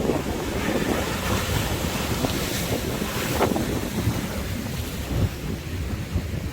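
Sea waves washing on the shore, with a surge near the middle, under strong wind buffeting the microphone.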